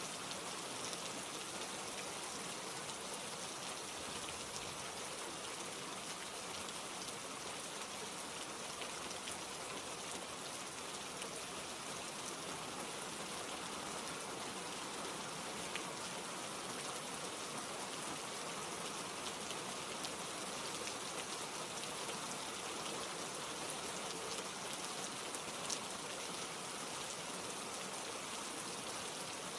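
Steady rain falling, an even hiss with scattered individual drops pattering.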